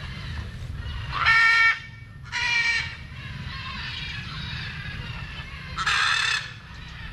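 Papuan hornbill calling: three loud, pitched calls of about half a second each, two close together a little over a second in and a third about six seconds in.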